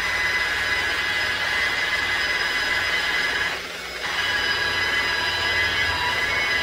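Power polisher spinning a cotton buffing wheel against metal, a steady high whine. It dips briefly about three and a half seconds in, then picks up again.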